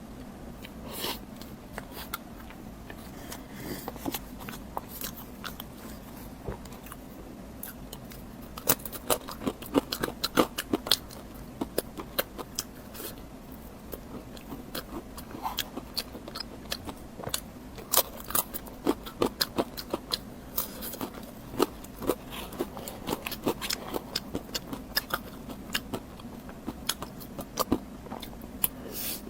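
Close-miked eating sounds: a person biting and chewing food, a stream of sharp short clicks and crunches that grows much busier from about nine seconds in.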